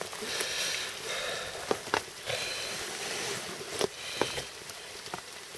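Rain pattering steadily, with rustling and four or five sharp taps from handling close to the microphone.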